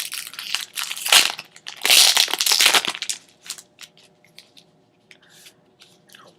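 Booster pack wrapper being torn open and crinkled, loud for about the first three seconds, then only faint scattered crinkles and ticks as the pack and cards are handled.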